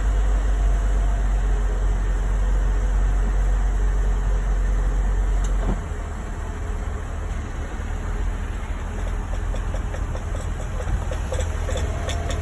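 GMC Acadia moving slowly with a low rumble. From about nine seconds in, a rapid series of evenly spaced clicks comes in and grows clearer: the noise from the rear end that the vehicle makes on low-speed turns.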